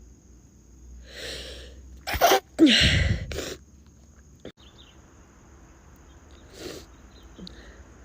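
A woman sneezing: a breathy intake about a second in, then an explosive sneeze in two loud bursts just after two seconds, her voice falling in pitch, followed by a short breath out.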